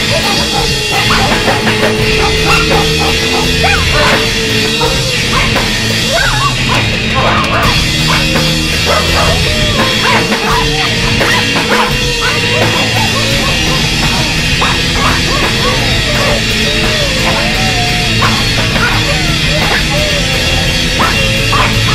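Loud live heavy rock band playing an instrumental passage: bass guitar and a drum kit with crashing cymbals, with a wavering held lead note over them.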